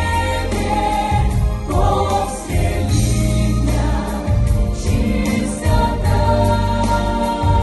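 Pop choir singing a song over an instrumental backing with a strong bass line.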